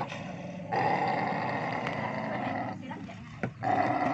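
Mating village dogs growling in two long, drawn-out stretches, with a short break about three seconds in.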